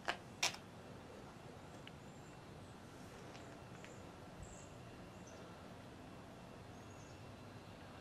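Quiet outdoor background with faint, high bird chirps here and there. Two sharp clicks right at the start.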